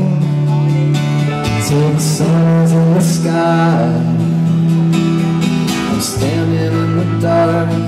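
Live rock band playing: strummed acoustic guitar, electric guitar and drums with cymbal crashes, and a male lead voice singing at times.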